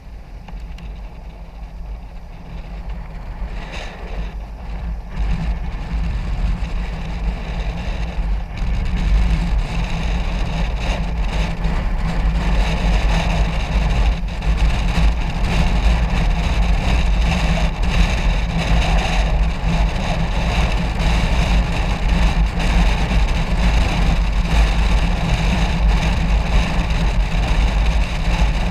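Wind rushing over a helmet-mounted camera on a motorcycle coasting downhill with its engine switched off, a low steady rumble with no engine sound. It grows louder over the first nine seconds or so as speed builds, then holds steady.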